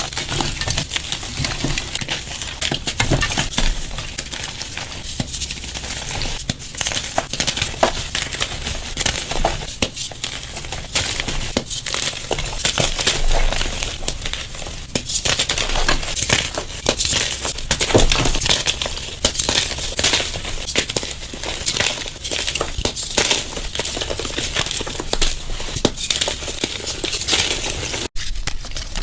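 Gym chalk being crushed: a dense, continuous run of crunching and crackling, broken by a brief gap near the end where one clip gives way to another.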